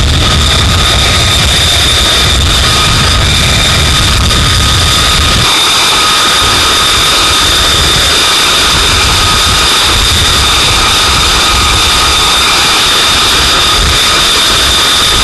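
F-35's Pratt & Whitney F135 jet engine running loudly with a steady high turbine whine over a dense rush of noise; the deep rumble underneath falls away about five and a half seconds in while the whine holds.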